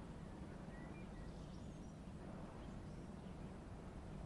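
Quiet background ambience: a low steady hum with a few faint, short high chirps.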